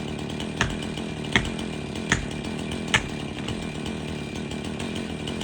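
Chainsaw idling steadily while a hammer strikes a felling wedge four times, about three-quarters of a second apart, driving it into the back cut to start the tree's lean.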